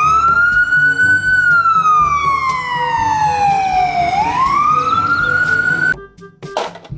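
Ambulance siren wailing: the pitch rises, falls slowly over about three seconds, rises again, then cuts off suddenly about six seconds in.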